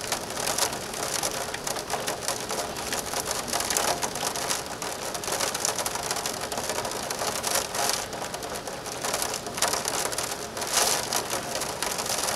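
Hurricane storm noise of wind-driven rain and rough surf breaking on a rock shoreline: a dense, steady rushing hiss full of crackle, surging louder in gusts several times.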